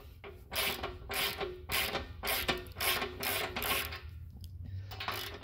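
Wrench tightening a thread-taped bolt into an air compressor: quick repeated ratcheting strokes, about three a second, that stop about four seconds in.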